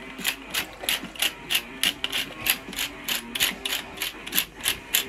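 Hand-twisted metal pepper mill grinding black pepper: an even run of ratcheting clicks, about three a second.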